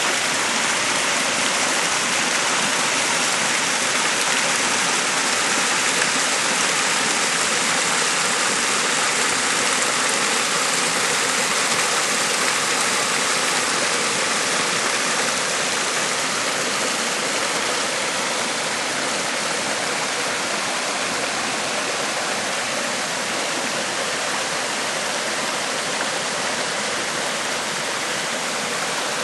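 Waterfall, water falling and splashing with a steady rushing hiss.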